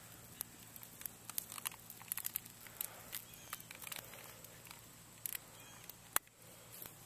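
Small fire of dry leaves and twigs crackling, with irregular sharp pops, the loudest about six seconds in.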